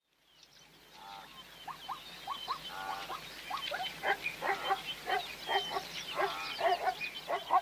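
A busy string of short animal calls, squawks and chirps, some gliding in pitch, getting louder over the first few seconds.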